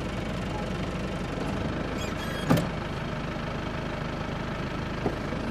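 Car engine idling steadily, heard from inside the vehicle. A single sharp knock about two and a half seconds in, and a fainter click near the end.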